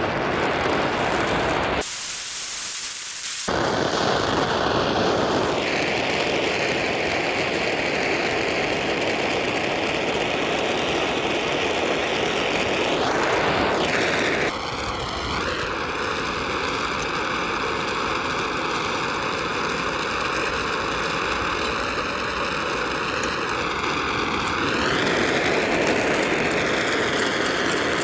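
Steady hiss of a gas torch flame heating silver for melting. About halfway through a steady whistling tone sets in over the hiss and bends near the end.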